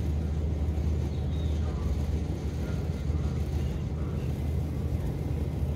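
Steady low drone of the ferry's diesel engines, running evenly without change.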